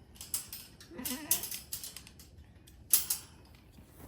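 A goat bleats once, a short wavering call about a second in, among several sharp bursts of rustling and clicking.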